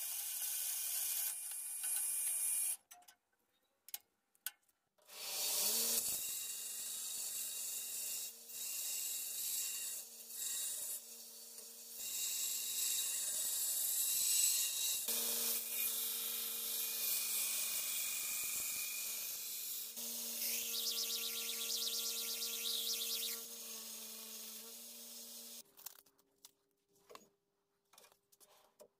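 Metal band saw cutting a steel saw-blade plate for about three seconds. After a short pause with a few clicks, a belt grinder starts and grinds the steel, a steady motor hum under a harsh grinding hiss. It stops near the end, followed by scattered clicks and knocks as the sanding belt is handled.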